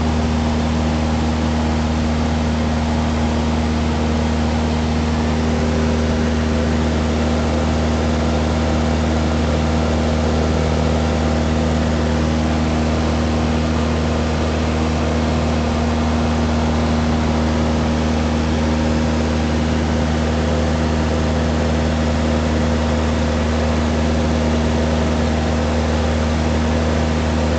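Cessna 172's piston engine and propeller running steadily in flight, heard from inside the cabin as an even, unchanging drone.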